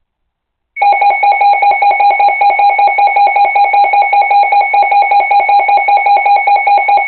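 Loud emergency alert attention tone starting about a second in: a high electronic beep pulsing rapidly, about eight pulses a second, signalling an incoming severe weather warning.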